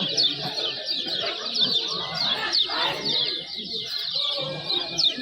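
A chorus of many kecial kuning white-eyes calling over one another, a dense run of short, high, falling chirps several a second, with a murmur of people's voices beneath.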